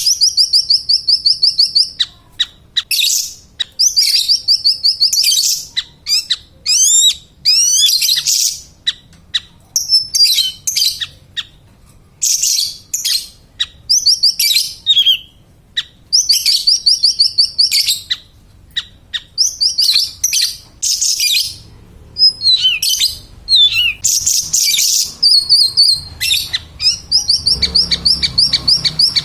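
Siri-siri besar songbird singing in full voice: rapid, high chattering phrases and trills, each a second or two long, following one another with short pauses between.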